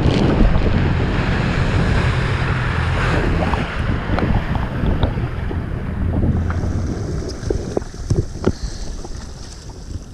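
Honda AquaTrax F-12X personal watercraft's turbocharged four-stroke engine running under way, with wind buffeting the microphone and water splashing. The sound fades over the last couple of seconds.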